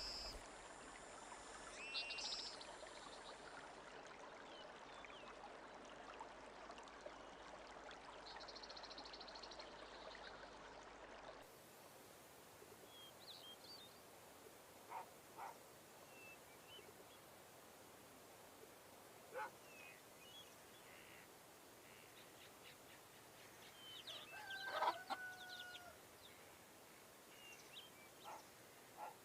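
Faint nature ambience: a soft steady hiss of running water that cuts off abruptly about eleven seconds in, then scattered, short distant bird calls, the loudest a brief held call near the 25-second mark.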